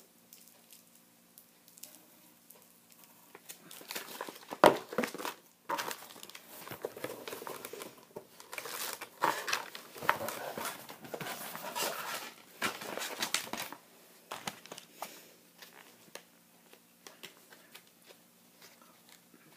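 Packaging handled while products are unpacked from a cardboard box: crinkling and rustling in bursts, with one sharp knock about five seconds in.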